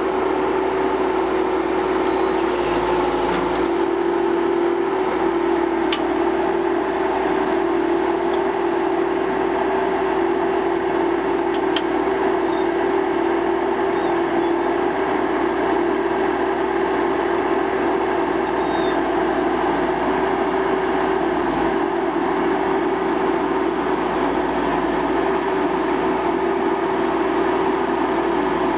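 Steady mechanical drone: an even, constant-pitched hum over a noise bed, with a faint click or two.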